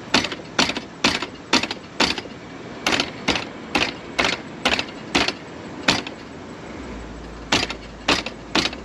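Repeated pounding on the awning's metal hardware to knock it loose, sharp strikes about two a second. There is a short pause about six seconds in, then three more blows.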